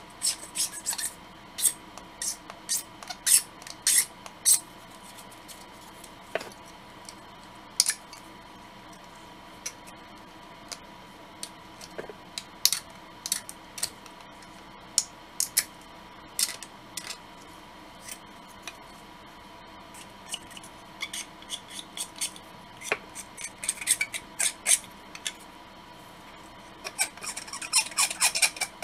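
Model-kit parts being scraped and handled by hand: irregular short, sharp scrapes and clicks in clusters, busiest near the start and again near the end.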